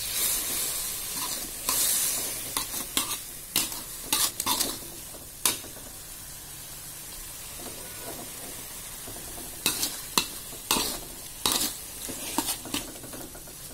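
Spice paste with sliced red chilies, tomato and dried shrimp sizzling in oil in a metal wok, stirred with a metal spatula that clicks and scrapes against the pan at irregular moments. The sizzle is loudest in the first couple of seconds, and the stirring clicks pause for a few seconds in the middle.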